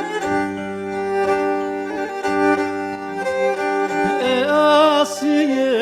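Opening of a Laz-language Black Sea folk song: bowed strings playing held notes over a steady low drone. A wavering melody line with vibrato comes in about four seconds in.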